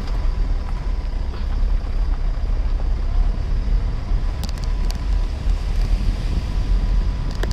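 Car driving slowly, a steady low rumble of engine and tyres on the road heard from inside the car, with a few faint light clicks about halfway through.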